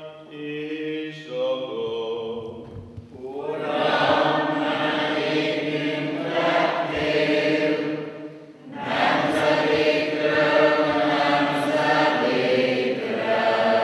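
A male priest chants a short liturgical line on steady notes, then about three seconds in the congregation takes up the singing, with many voices in two long sung phrases.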